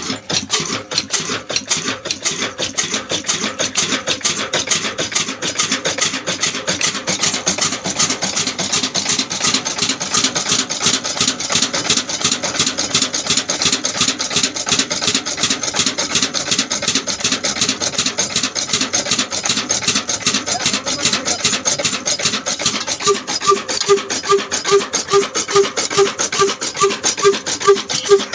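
Old Ruston horizontal single-cylinder diesel engine running steadily with a fast, even mechanical clatter. Near the end, a pulsing tone of about two to three beats a second joins the clatter.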